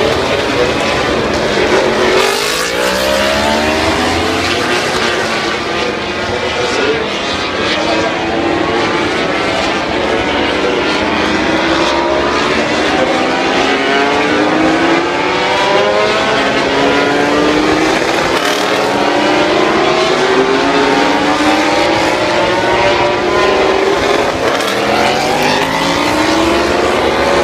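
Moto3 race bikes' single-cylinder four-stroke engines revving hard as they leave the pit lane. Several engines overlap, each pitch climbing and dropping back again and again as it shifts up through the gears, heard through a phone's microphone.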